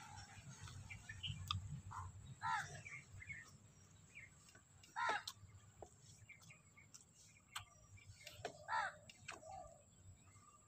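Crows cawing: three loud, harsh caws a few seconds apart, with fainter small-bird chirps between them.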